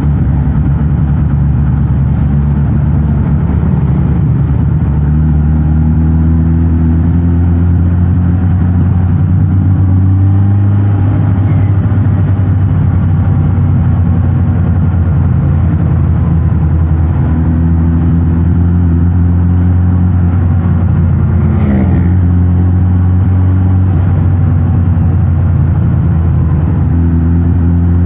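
Suzuki GSX-S 1000 GT's inline-four engine running through its stock exhaust while riding, with the engine note rising and falling gently with the throttle and a quick change in revs about 22 seconds in.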